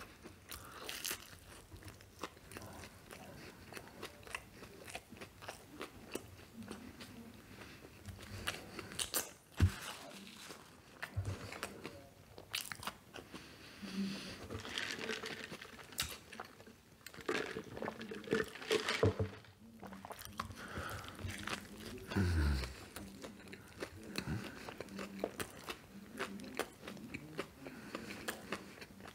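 A man biting and chewing a Quarter Pounder BLT burger close to the microphone, with irregular wet smacks and crunches. There is a brief low sound falling in pitch about 22 seconds in.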